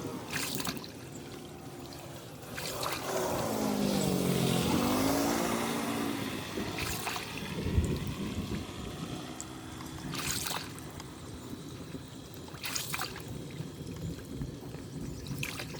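Water trickling and pouring steadily through a cleared drain. A vehicle drives past from about three to six seconds in, the loudest sound, and there are a few short sharp splashes or knocks.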